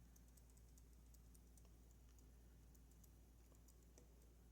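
Faint, scattered light metallic ticks of a lock pick working the pin stacks of a Goal Z pin-tumbler lock, over near silence.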